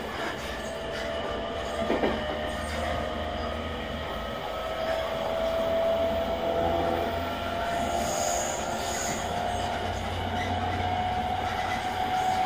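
JR East E217-series electric train heard from inside motor car MoHa E217-31: a steady rumble of wheels on rail under a motor whine that rises slowly in pitch as the train gathers speed, with a couple of rail-joint clicks in the first two seconds.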